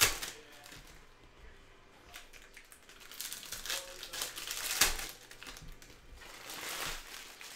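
Foil wrappers of Panini Donruss soccer card packs crinkling as they are torn open by hand, in short bursts, the loudest a little before five seconds in.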